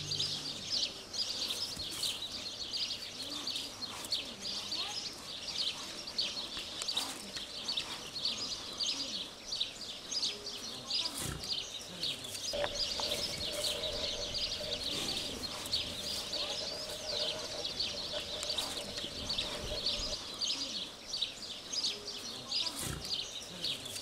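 Dense, continuous chirping of many small birds, with a faint steady hum for several seconds in the middle.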